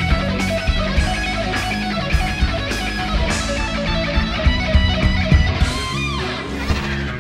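Heavy metal rock music led by electric guitar, with drum and cymbal hits about twice a second. About six seconds in, a high note bends up and down.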